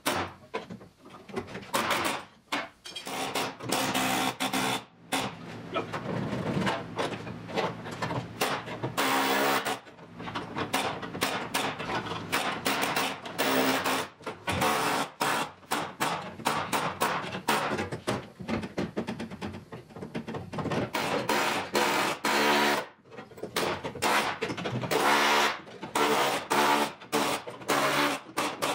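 Pneumatic air chisel hammering in repeated stop-start bursts, cutting old welded patch panels out of rusted steel inner sill and floor metal.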